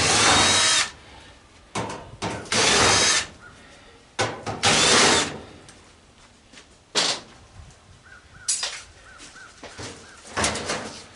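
Power drill backing out screws from the sheet-metal panels of a gas cook stove in three short runs of about a second each, followed by a few lighter knocks.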